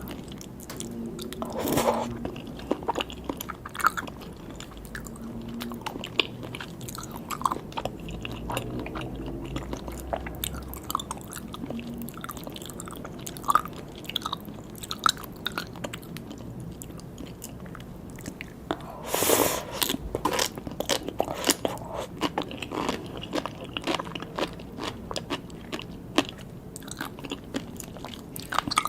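A person eating, chewing and biting with many small, sharp crunchy clicks, thickest and loudest about two-thirds of the way through.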